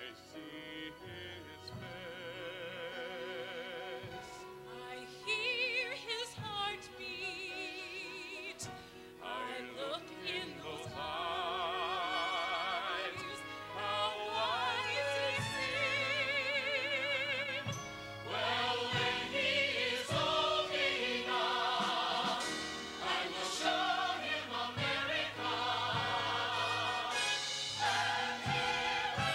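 Singing with a wide vibrato over an orchestra, from a stage musical. The music grows louder and fuller after the first few seconds, with more than one voice by the end.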